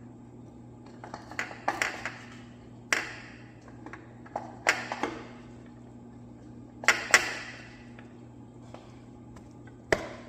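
Metal engine parts and hand tools clinking and clanking during piston removal from a slant six engine: about six sharp metallic knocks, some in quick pairs, each with a short ring.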